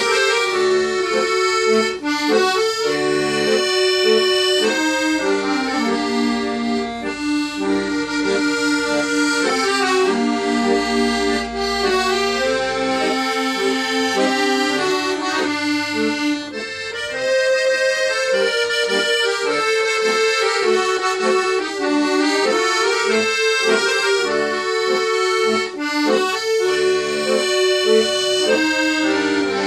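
An ensemble of four piano accordions playing a Greek laïko (popular) tune together, a moving melody over sustained chords.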